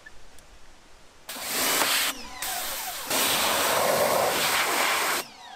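Pressure washer spraying water into a jet ski's hull. The spray starts about a second in, breaks off briefly, runs again louder, and cuts off shortly before the end.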